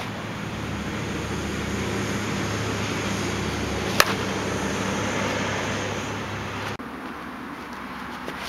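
A slowpitch softball bat striking a pitched softball once, a single sharp crack about four seconds in, over a steady low rumble that cuts off abruptly near the end. Another crack of bat on ball comes right at the very end.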